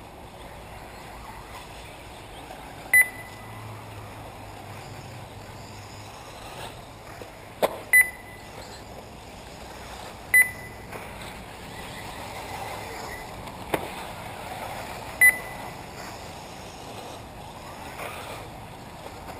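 Short high electronic beeps from the lap-counting system of an RC car race, four times a few seconds apart, over steady background noise. Two sharp clicks fall between them.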